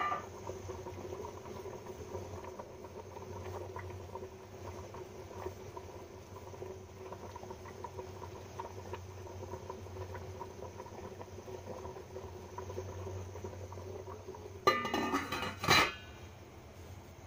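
Soup bubbling in a stainless steel pot, a steady simmer of many small pops over a low hum. Near the end the stainless steel lid clanks and rings twice as it is set on the pot.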